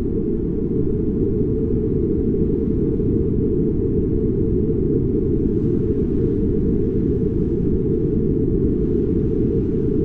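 A steady low rumble of noise, dull and muffled, with nothing higher over it and no change in level.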